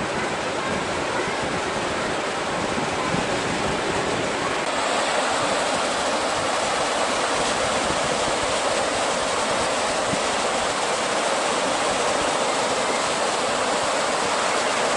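Surf on a sandy beach: a steady rush of waves breaking on a rough sea, growing a little louder and brighter about a third of the way through.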